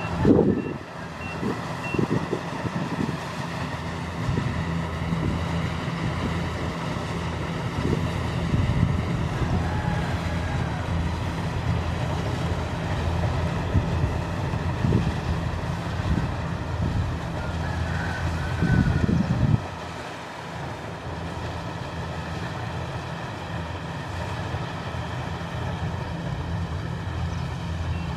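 Diesel engine of a Kubota rice combine harvester running steadily, with its reversing alarm beeping a few times in the first couple of seconds. Wind buffets the microphone at the start and again about two-thirds of the way through.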